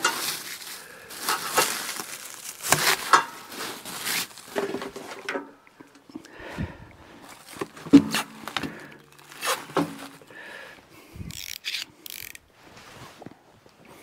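Clear plastic wrapping crinkling and rustling as a new wood chipper is unpacked, with cardboard packing being handled and a few sharp knocks, the loudest about eight seconds in.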